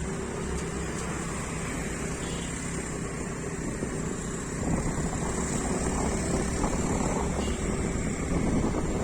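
A scooter in motion, heard from the rider's seat: its steady running mixed with wind buffeting the microphone, growing a little louder about halfway through.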